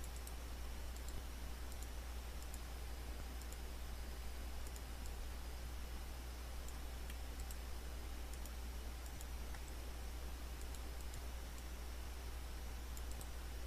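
Faint computer mouse clicks, scattered and irregular, over a steady low hum and hiss from the recording microphone.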